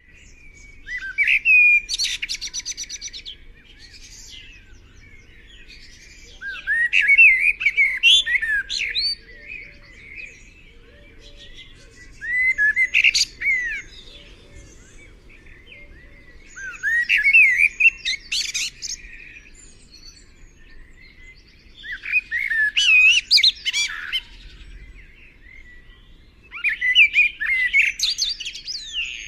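A songbird singing: six separate phrases of quick up-and-down whistled notes, each a second or two long, repeated about every five seconds.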